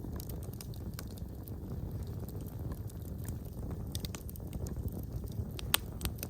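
Wood fire in a fireplace crackling: a steady low rumble of flames with scattered small snaps, and one sharp, loud pop near the end.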